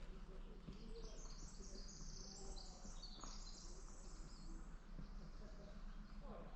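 A small songbird singing a rapid, high-pitched jumble of notes for about four seconds, starting about a second in, over a steady low background rumble.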